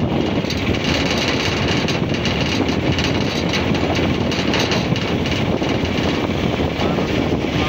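Steady road noise from riding in a moving vehicle through traffic, with tyres, engine and wind blended into a continuous rush.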